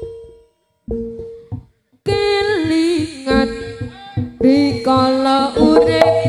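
Javanese jaranan ensemble music. A phrase dies away into a short gap, then a sung line with held instrument tones comes in, and drums and the full ensemble return about four seconds in.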